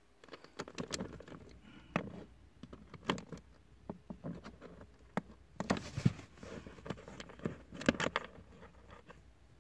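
Small clicks, taps and scrapes of a Torx screwdriver bit turning a screw out of a plastic car trim panel, the metal tool knocking against the plastic. The loudest taps come about two, six and eight seconds in.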